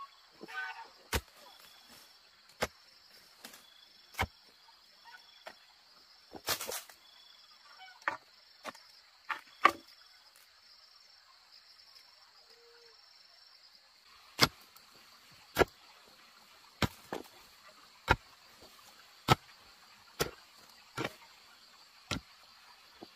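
A series of sharp knocks, like a hand tool striking: scattered at first, then a steady run of blows about one every 1.2 seconds over the last third. A steady high hiss runs underneath.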